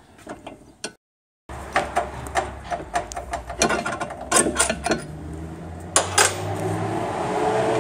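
Metal clicks and knocks of hand tools on the front suspension as the lower shock absorber bolt on a VW Transporter T4 is worked loose. The sound cuts out briefly about a second in, and a low steady hum comes in past the middle.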